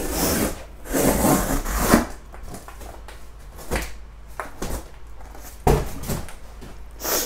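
Boxes and packaging on a pallet being handled: two longer rustling, scraping stretches in the first two seconds, then scattered short knocks and scrapes.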